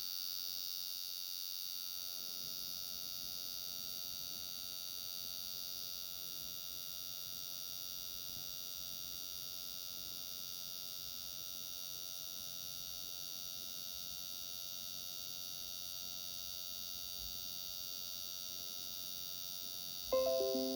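Brand-new Dell XPS 13 laptop's cooling fan running with a steady high whine made of several fixed tones, a sound the owner likens to a bad or missing fan bearing. Near the end, a short chime of a few notes falling in pitch.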